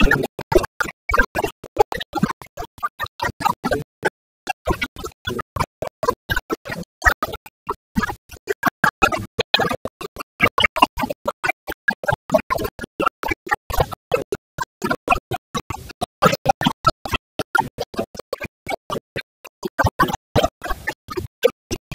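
A man's voice through a handheld microphone, chopped into a stuttering, garbled stream by rapid audio dropouts many times a second, so that the words cannot be made out.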